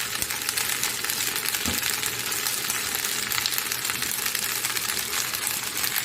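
Chicken macaroni with tomato sauce sizzling in oil in a pan on the stove: a steady frying hiss with fine crackling.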